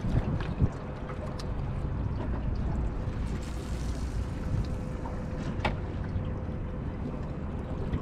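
Wind buffeting the microphone on an open boat, with a faint steady hum underneath. There is a sharp knock under a second in and a lighter click later, from the fishing rod and reel being handled.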